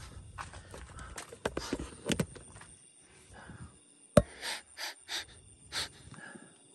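A person sniffing in a quick series of short, sharp sniffs, smelling things to trace a foul, rotten smell. A single sharp knock comes just before the sniffs and is the loudest sound, and faint handling noises come earlier.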